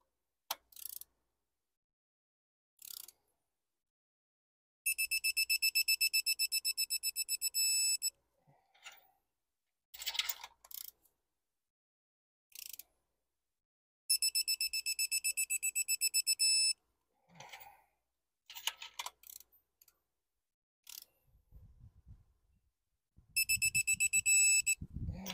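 Quinn digital torque wrench beeping rapidly in three spells of a few seconds each, its alert that the set torque of 13 foot-pounds has been reached on a spark plug. A few short clicks come between the spells.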